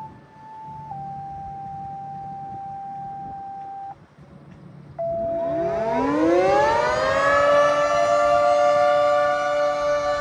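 Outdoor electromechanical tornado siren winding up, its pitch rising for about a second and a half, then holding steady at full pitch. Before it, a steady electronic tone sounds for about four seconds, dropping to a lower pitch after the first second, followed by a short, lower tone of about a second.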